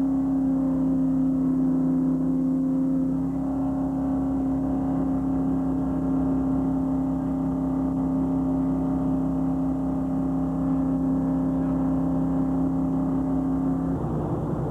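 Fishing boat's engine running with a steady, even drone. It changes abruptly near the end.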